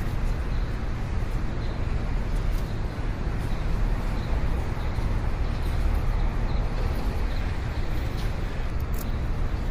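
Steady, low, rumbling background noise like road traffic, with faint high chirps now and then.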